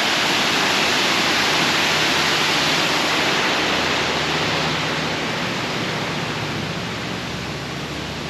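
The Lechfall, the waterfall on the Lech river: a steady rush of falling water that slowly gets a little quieter over the second half.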